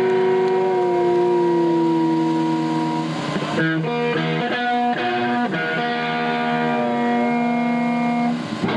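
Amplified electric guitars hold long ringing notes, with a few slow bends in pitch, in a loud live punk rock performance.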